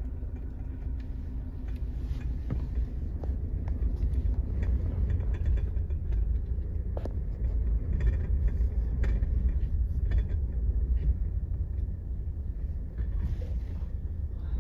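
A vehicle driving along, heard as a steady low rumble with scattered knocks and rattles.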